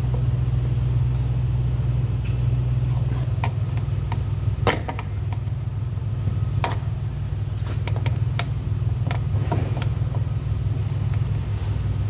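Scattered sharp clicks and scrapes of a thin metal pry tool working at a stubborn push-pin retainer on the plastic shield of a Ford F-250's DEF tank, over a steady low hum.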